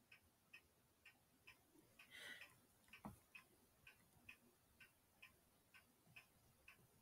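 Near silence with faint, regular ticking about twice a second, and a single soft click about three seconds in.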